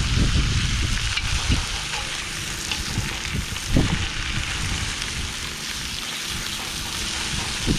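Chicken thighs sizzling steadily as they brown in a cast-iron Dutch oven, with a few soft thumps as they are pressed flat.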